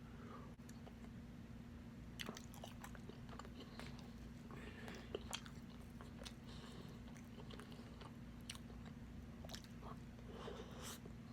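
Close-miked chewing and biting of spicy pork adobo, with scattered short wet clicks and crunches from about two seconds in.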